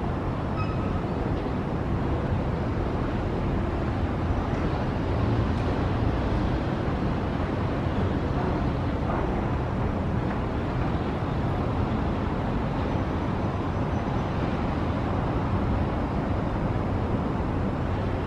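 Steady low rumble of distant urban road traffic, an even hum with no single vehicle standing out.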